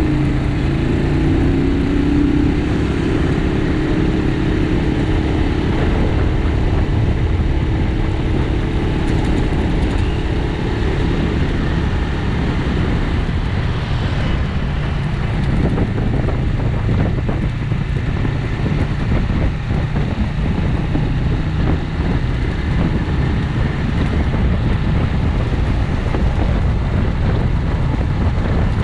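Bristol 250 Classic 250 cc motorcycle engine running steadily at road speed, mixed with wind rushing over the microphone.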